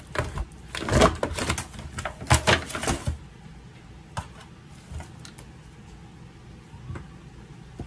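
Disposable aluminium foil pan crinkling and clattering as a rack of raw pork ribs is flipped over in it: a dense run of crackles for about three seconds, then a few scattered clicks.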